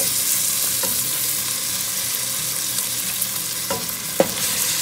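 Raw chicken pieces going into hot oil in a stainless steel pot, setting off a loud, steady sizzle that swells up as the meat lands. A wooden spoon scrapes the meat off a plate, giving a few short knocks about a second in and near the end.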